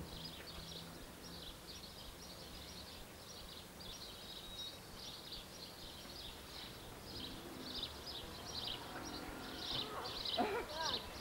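Small birds chirping over and over, faint and high-pitched, a few chirps a second, with a short voice-like call near the end.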